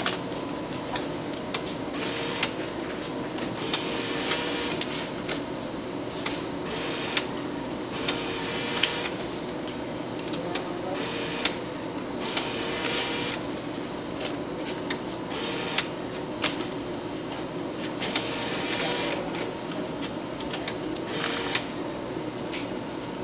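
MEI bill recycler in a change machine pulling in $5 bills one after another, each bill drawn in with a short motorized whir and click as the recycler rolls it into storage while it is being loaded. A steady hum runs underneath.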